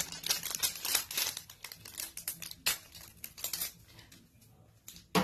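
Plastic packaging crinkling and rustling as it is handled, with small clicks and taps. It is busiest in the first three and a half seconds and then trails off.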